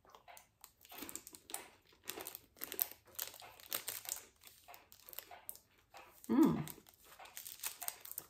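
Plastic snack wrapper crinkling as it is handled, in small irregular crackles. A short vocal sound about six seconds in.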